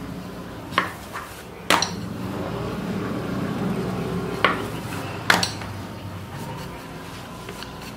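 Wooden rolling pin rolling maida dough on a wooden tabletop, a low rumble that swells in the middle, with four sharp knocks as the pin is handled against the table.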